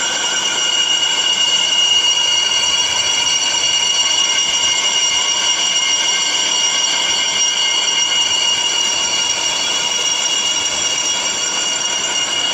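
Metal lathe boring the inside of a steel sleeve: the boring tool cuts steadily with a high-pitched squeal of several steady tones over the hiss of cutting. This is a rough pass, and the bore is to be finished later.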